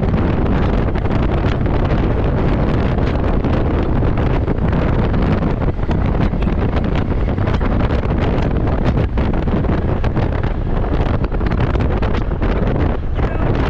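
Wind buffeting the microphone of a moving vehicle, with road noise underneath: a loud, steady rush broken by constant irregular flutters.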